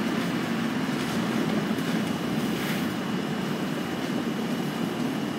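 Steady low rumbling background noise with a thin, faint high tone running through it; no distinct knocks or pours stand out.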